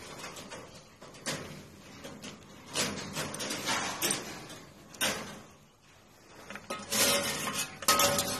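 Irregular scraping and knocking on wire-mesh rabbit cages as they are handled, a rattle every second or so that gets busier near the end.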